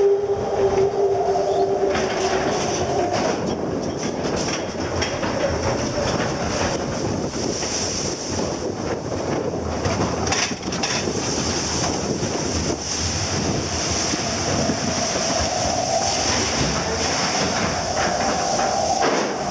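Roller coaster car running along its tubular steel track: a steady rumble and rattle of the wheels with rushing air. A steady whine sounds for the first few seconds and again near the end.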